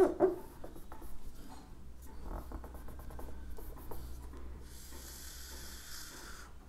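Faint scratching and rubbing of writing strokes as a diagram is drawn, with a steady higher hiss about five seconds in lasting a second and a half.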